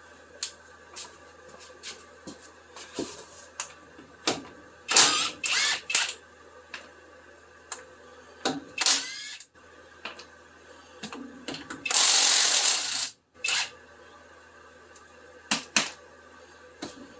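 Hand tools working on metal fasteners: scattered clicks and clinks, with a few louder clattering bursts and, about two-thirds of the way in, a longer noisy burst of about a second.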